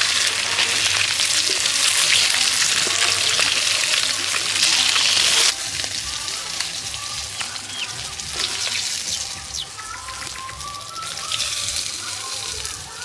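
Fish pieces frying in hot oil in a kadai: a loud, dense sizzle that cuts off suddenly about five seconds in, followed by a quieter, thinner sizzle with short high chirps scattered through it.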